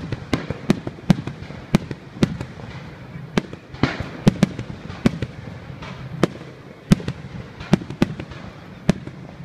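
Aerial firework shells bursting in a rapid, irregular string of sharp bangs, about two a second, over a steady background rumble.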